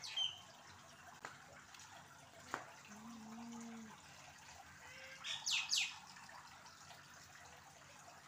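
Small bird chirping: one sharp falling chirp right at the start, then a quick pair of high chirps about five and a half seconds in, over a quiet background with a few faint taps.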